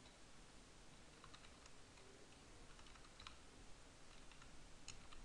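Faint computer keyboard typing: a few scattered keystrokes in short clusters, over low background hiss.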